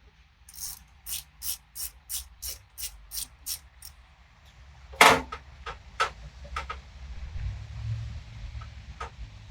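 Socket ratchet wrench clicking about three times a second for some three seconds while a snowblower's spark plug is backed out. Then a single loud knock about five seconds in and a few lighter metal clicks.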